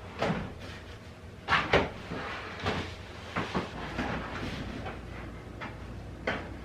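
Heavy storage boxes being lifted down and handled: a series of knocks and thuds with scraping and rustling in between, the loudest pair of knocks about a second and a half in.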